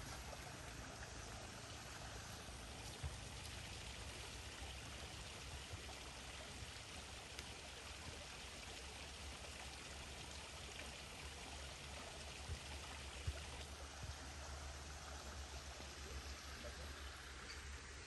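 Steady hiss of running water, a small stream or trickle feeding the pond, with a few faint clicks over it.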